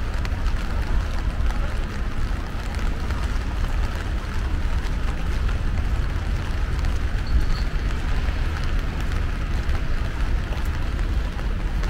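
Steady rain falling, with an even low rumble underneath.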